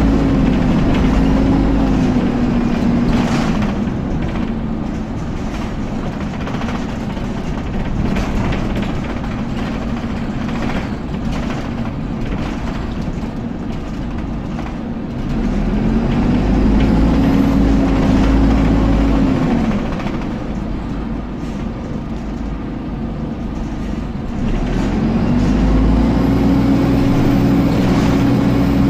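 Dennis Dart SLF bus's rear engine and cooling fan heard from inside the saloon while on the move. There are three surges a few seconds long, near the start, past the middle and near the end, where a whine rises, holds and falls away over a deep rumble, with quieter running in between.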